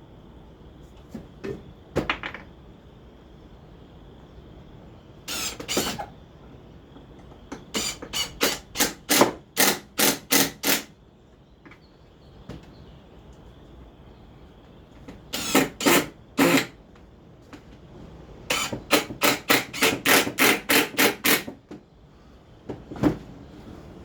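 Nailing into wooden slats: four quick runs of sharp strikes, about three a second, the longest about a dozen blows, with a few single knocks in between.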